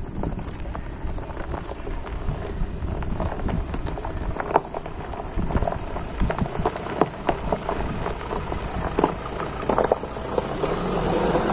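Ford SUV's tyres rolling slowly over a loose, rocky dirt track: gravel crunching, with many sharp clicks and cracks of stones shifting under the wheels.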